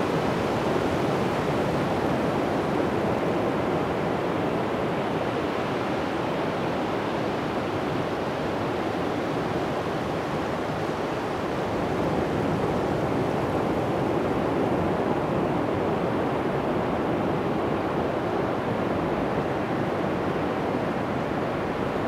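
Atlantic surf breaking and washing over a flat sandy beach: a continuous rushing noise that swells and eases slowly over several seconds.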